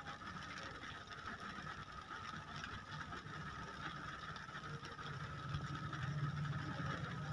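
Steady rain on a car, heard from inside the car. A low rumble under it grows louder about five seconds in.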